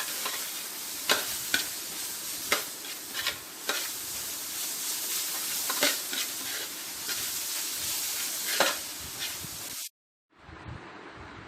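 Sliced onions and ginger-garlic paste sizzling in hot oil in a pan, with a spoon clicking and scraping against the pan many times as they are stirred. The sizzle cuts off suddenly near the end, and a quieter steady hiss follows.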